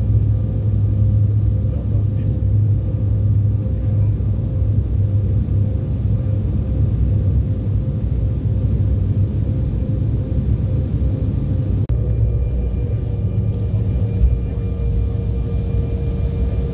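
Airliner cabin noise on final descent: a steady low rumble with a faint steady engine whine. About twelve seconds in it changes abruptly to the cabin noise of the plane rolling on the runway after landing, the rumble lower, with a single knock a couple of seconds later.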